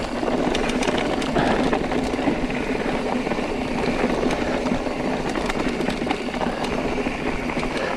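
Carbon mountain bike rolling downhill over a rocky, stony trail: tyres crunching on stones, with a steady rumble and many small rattling knocks from the chain and frame.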